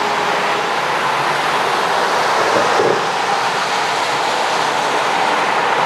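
Airbus A320-200's twin CFM56 jet engines at taxi power as the airliner rolls along the taxiway: a steady rush of noise with a steady whine over it.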